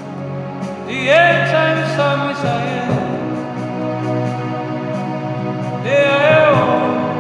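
Music: sustained held chords with a voice singing two long drawn-out phrases, one starting about a second in and another near the end.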